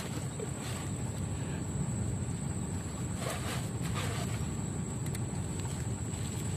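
Steady low outdoor rumble, with a few faint rustles and clicks as a portable camping stove's fabric case is handled, about three seconds in and again near four and five seconds.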